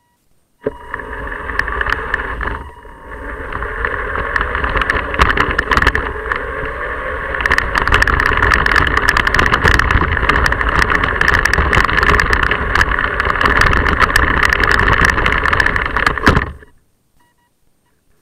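Rumble and dense rattling of a small vehicle carrying the camera low over rough pavement, starting abruptly about half a second in and cutting off abruptly near the end.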